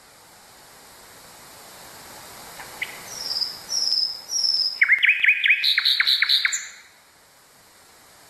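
Nightingale singing one phrase over a steady hiss. A few faint notes lead into three short high whistles, then a fast series of about eight loud repeated notes, about five a second, which stops abruptly about two-thirds of the way in.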